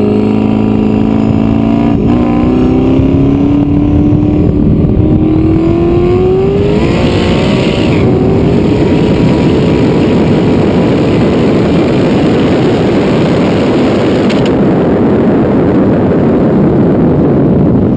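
Twin-turbo iron-block 427 LSX V8 of a drag Corvette at full throttle, heard onboard. Its note climbs steadily for about seven seconds as the car accelerates, then is buried under a loud rush of wind over the rear-mounted camera at top speed. There is a brief click near the end.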